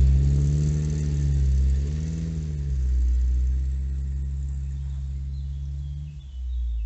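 Vehicle engine running while driving. Its pitch rises and falls twice in the first three seconds as it revs and eases off, then holds steady, and it drops away near the end.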